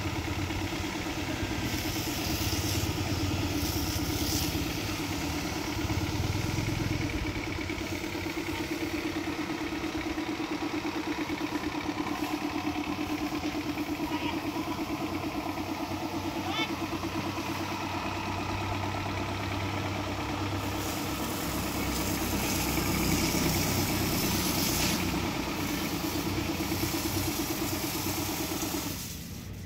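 A small motor running steadily with a pulsing hum, cutting out shortly before the end, with stretches of hiss.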